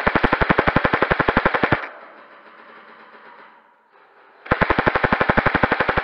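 Airsoft electric gun firing full-auto at about fourteen shots a second. A long burst stops a little under two seconds in, and a second burst starts past the middle.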